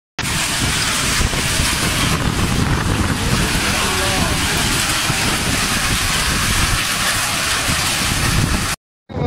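Heavy hail and rain pelting down onto a paved yard, a dense, steady noise that cuts off suddenly near the end.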